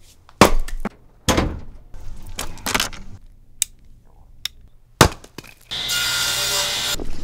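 Several hard wooden knocks of an axe chopping firewood over the first three seconds, then a few metallic clicks from a revolver being handled. Near the end a table saw cuts through a board for about a second.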